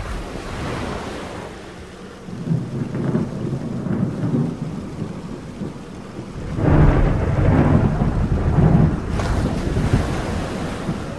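Thunderstorm sound effect: rain hissing under long rolls of thunder, the loudest rumble in the middle and a brighter crack near the end.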